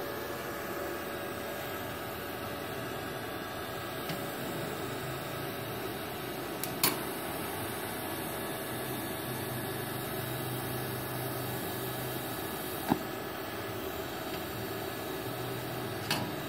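Steady hum and hiss of an EG 250A-SC inverter stick welder set up for TIG welding stainless plate, its cooling fan running while the arc burns. A few sharp clicks.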